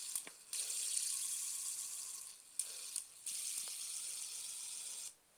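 Fidget spinner whirring on its bearing, a steady high hiss with a few light clicks, breaking off briefly midway and stopping near the end.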